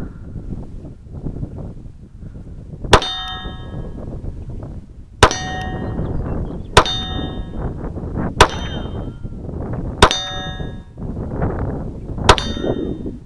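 Six pistol shots at uneven intervals, each hit setting a steel plate target ringing with a bright, lingering metallic tone.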